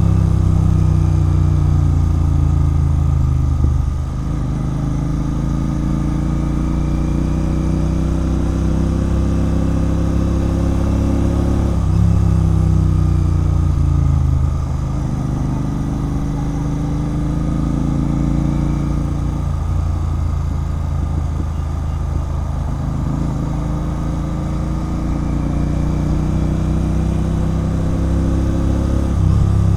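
Royal Enfield Continental GT 650's parallel-twin engine through a loud RRP aftermarket exhaust while riding. The exhaust note climbs slowly in pitch under throttle, then drops sharply and quietens about four seconds in and again near the middle. It picks back up just before the middle and again near the end.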